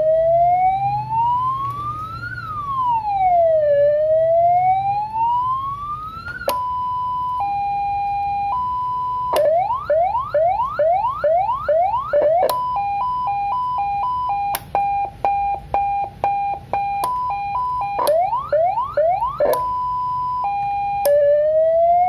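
CJB119 100-watt electronic siren amplifier stepping through its tones as the selector knob is turned: first a slow wail rising and falling, then a hi-lo two-tone, then quick rising yelp sweeps, a faster two-tone, and back to the slow wail near the end.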